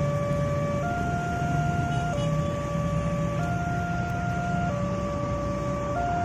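Level-crossing warning alarm sounding a steady two-tone high-low pattern, each tone held about a second and a quarter, signalling that the barrier is down for an approaching train. Engine rumble from waiting road traffic runs underneath.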